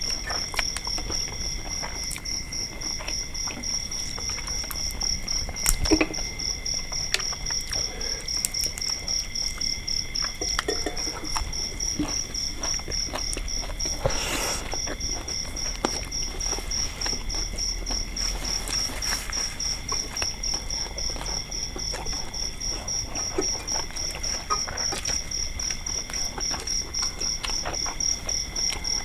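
Night insects trilling without a break: a fast, evenly pulsing high chirr, with two fainter steady tones beneath it. Scattered soft clicks and mouth sounds come from people eating with their hands, the sharpest click about six seconds in.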